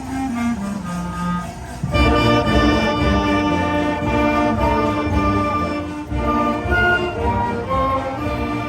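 Elementary school wind band playing: a light melodic line for about two seconds, then the full band comes in loudly with brass and low notes, holding sustained chords.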